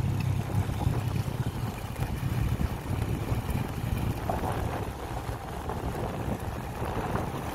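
Motorcycle engine running steadily at cruising speed, with wind buffeting the microphone. The low engine drone is strongest in the first second or two, then grows weaker and less even.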